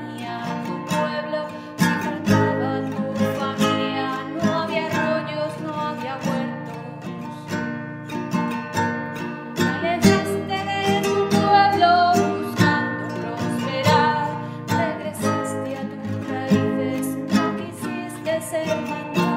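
Acoustic guitar played with plucked notes and strummed chords, with a woman's voice singing along.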